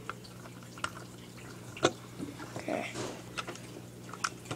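Small plastic clicks and taps of Lego pieces being handled and fitted together: a handful of scattered clicks, the sharpest a little under two seconds in.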